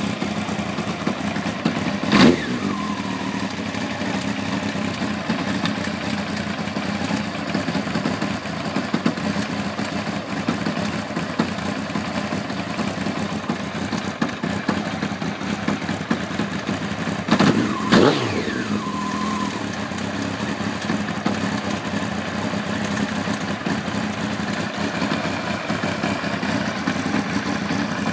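1992 Honda CBR900RR's inline-four engine idling steadily, with a suspect noise that the owner wonders may come from the cam chain or its tensioner. The throttle is blipped twice, about two seconds in and again some sixteen seconds later, each a quick rise and fall in revs.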